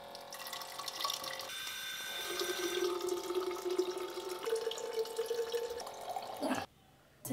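Electric water dispenser pump on a large water jug running with a steady hum while water pours into a plastic bottle. The pitch of the pouring rises as the bottle fills, and the pump cuts off suddenly near the end.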